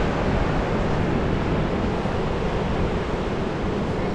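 Steady wind and surf noise on an ocean beach, with wind buffeting the microphone. It holds at an even level throughout.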